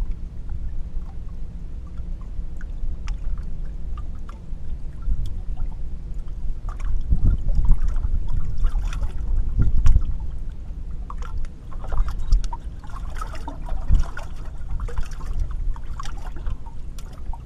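Water lapping against a bass boat's hull under a steady low rumble, with scattered light clicks and knocks from the deck and tackle; a few heavier thumps come around the middle and again a little later.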